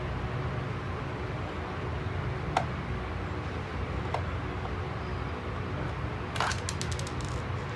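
Small hard clicks from hand-handling a plastic RC toy car while its battery cover is unscrewed and opened: two single clicks, then a quick run of rattling clicks near the end, over a steady low hum.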